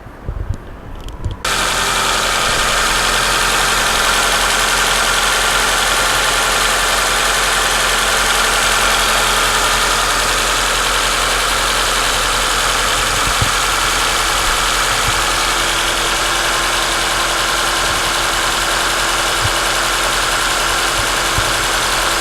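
Nissan SR20 inline-four engine: a few brief knocks, then it comes in suddenly about a second and a half in and idles steadily.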